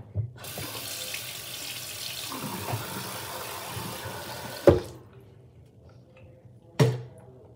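Bathroom sink tap running for about four seconds, then shut off. Two sharp knocks follow: one as the water stops and another about two seconds later.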